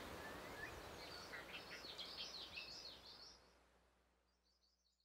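Faint birds chirping over a soft outdoor hiss, fading out to silence over the last two seconds.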